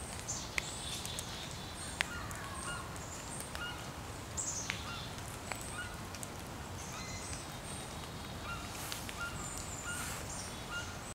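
Birds calling and chirping outdoors, short high calls scattered all through, over a steady low background hum.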